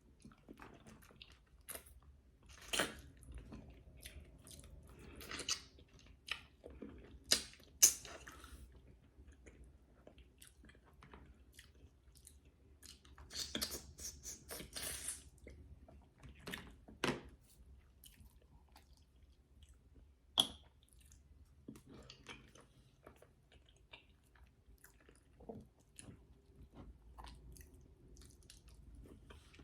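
Close-miked chewing of egusi soup and fufu, with scattered mouth clicks and a few louder sharp clicks.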